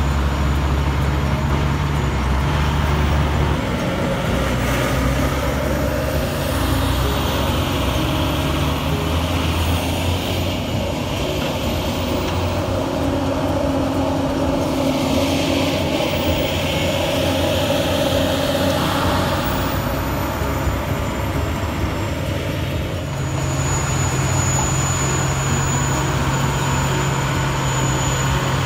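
Heavy diesel earthmoving machinery running steadily, its engine note stepping up and down a few times as it works.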